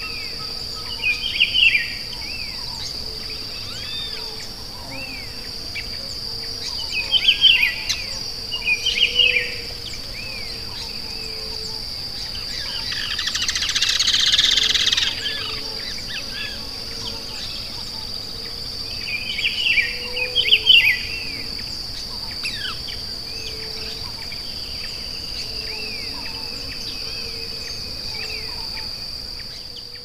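Wild birds singing in short, loud phrases three times, over a steady high-pitched insect buzz that runs throughout. About halfway through, a louder buzz swells up for a couple of seconds and fades.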